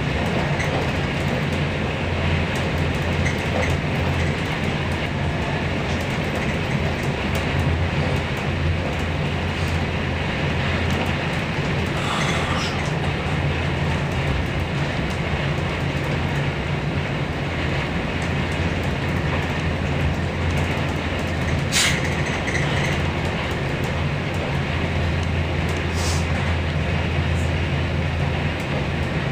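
Inside a moving passenger train: steady low rumble of the wheels running on the rails, with a few short clicks or knocks, the sharpest about 22 seconds in.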